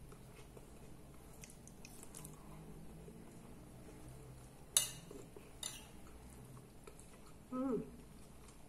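A metal fork clicking against a plate of salad and beans, with one sharp clink about halfway through and a lighter one a second later. A short voiced hum comes near the end.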